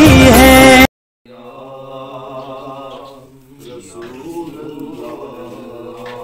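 A devotional song with a sung vocal cuts off abruptly about a second in. After a brief gap, a man's voice chants a prayer in a low, steady drone, holding long tones and shifting pitch every second or two.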